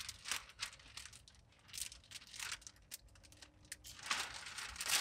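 A long strip of plastic window tint film crinkling and crackling faintly as it is handled and held against a windshield, with a louder rustle near the end.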